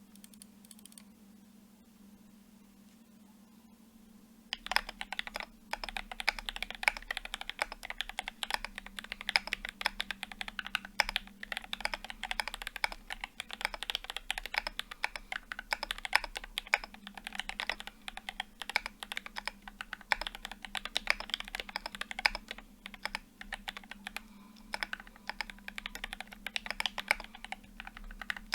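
Fast, continuous typing on a custom Alice-layout mechanical keyboard with a brass plate, lubed Gateron Black Ink linear switches and GMK doubleshot ABS keycaps. The keystrokes start about four and a half seconds in after a quiet opening.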